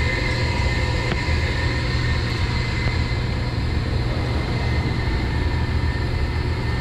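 Steady machinery drone of a commercial hydronic boiler room, with circulating pumps running: a constant low hum and a faint steady high whine over it.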